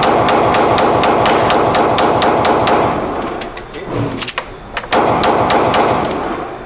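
Rapid handgun fire in an indoor shooting range, each shot ringing off the booth walls: a quick string at about four shots a second, thinning to a few scattered shots in the middle, then another quick run near the end.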